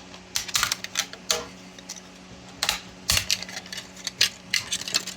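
PLA support material being snapped and peeled off a 3D print: an irregular series of sharp plastic cracks and clicks, several coming in quick clusters.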